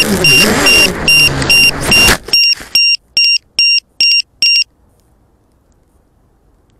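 An FPV250 quadcopter's Emax 2204 motors and 6045 props whining with a wavering pitch as the broken quad tumbles down, cutting out about two seconds in as it hits the ground. Over it a shrill electronic beeper sounds short beeps, about three a second, which go on alone after the motors stop and end about two seconds later.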